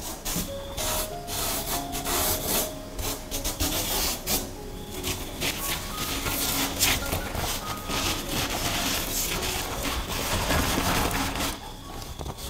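Hands sweeping and rubbing loose coloured sand across a sheet of sticker paper: a dry, scraping hiss broken by many small scuffs.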